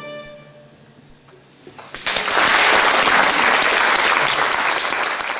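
The last note of violins and cello dies away, a brief hush follows, and then audience applause breaks out about two seconds in and keeps going.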